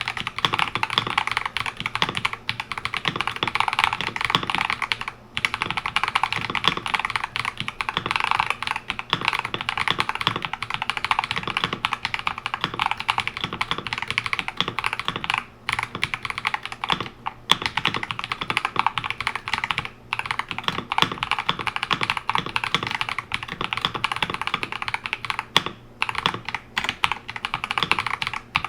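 Continuous fast typing on an Akko 5075S mechanical keyboard with Akko Lavender Purple switches lubed with Krytox 205g0, on a polycarbonate plate, with rapid key strokes and only a few brief pauses.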